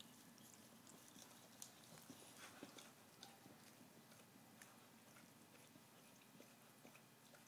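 Staffordshire bull terrier licking food out of a Spinone's beard: faint, irregular wet licks and small smacking clicks.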